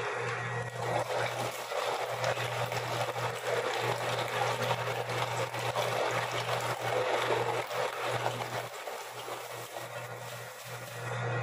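Electric meat grinder running with a steady motor hum while raw chicken heads are fed through it and ground, giving a wet, rough grinding noise that swells and eases as the load changes.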